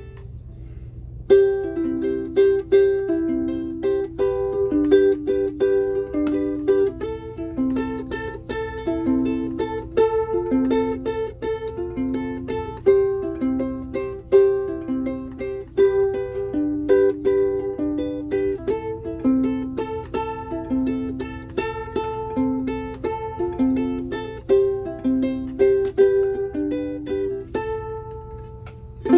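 Soprano ukulele built from a soft basswood kit and strung with Aquila Nylgut strings, played as a quick run of single picked notes in a repeating pattern. The playing starts about a second in.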